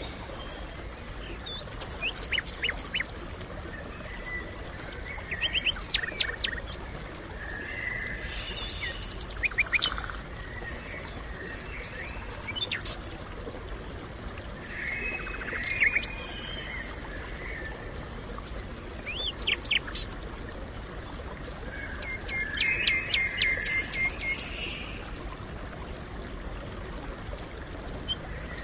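Forest ambience: several birds chirping and trilling in short phrases every few seconds, over a steady low background hiss.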